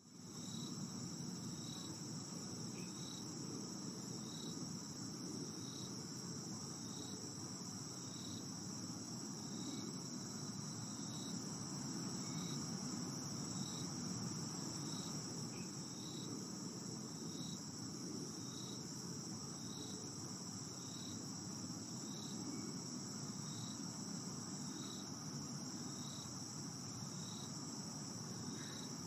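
Insects chirping: a steady high trill with a shorter, lower chirp about once a second, over an even low hiss.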